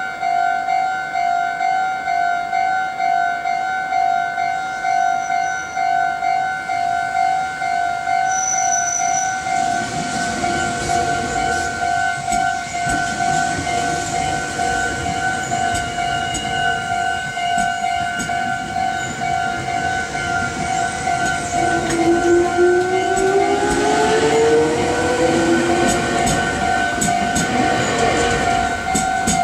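Japanese level-crossing alarm ringing with a steady, pulsing two-tone clang while a Meitetsu electric train passes through the crossing. Wheel and rail noise builds from about ten seconds in, with a rising motor whine and sharp rail-joint clicks near the end.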